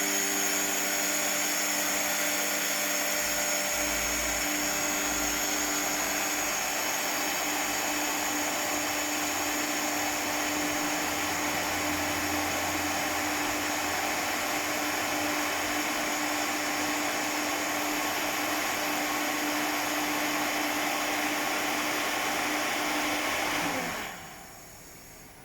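BOGE C7 LDR 5 kW direct-drive screw air compressor running under load: a steady hum with a high whine over it. About a second and a half before the end the sound falls away sharply and the hum winds down.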